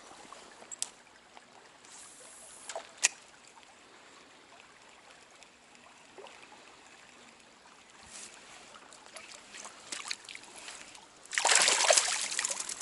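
Small trout stream running faintly with a few sharp clicks, then a sudden loud rushing noise near the end.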